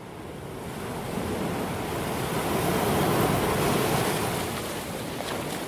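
Ocean wave sound effect: surf rushing in, swelling to a peak about three seconds in and then washing away.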